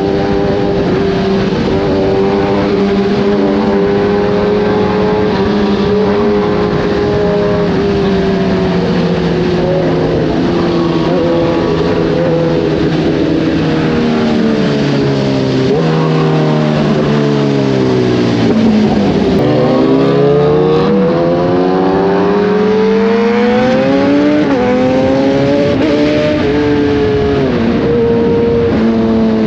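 Kawasaki ZX-10R inline-four engine through an Arrow racing exhaust. It holds a steady cruise, then slows with the engine note falling in steps through the middle, and accelerates again, its pitch climbing with one gear change before it settles to a steady note.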